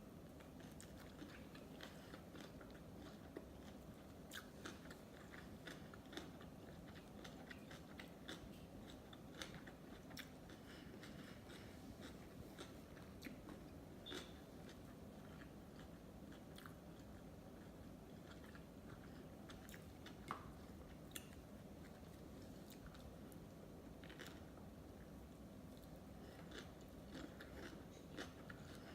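Sushi being bitten and chewed, with many small, irregular wet mouth clicks and a little crunch.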